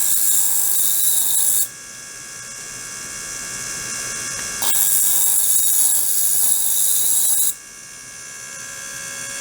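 Small-pump circulating ultrasonic water tank running under on/off control. A loud high hiss over steady high tones cuts out twice, each burst lasting about three seconds, with a few seconds of quieter sound between them.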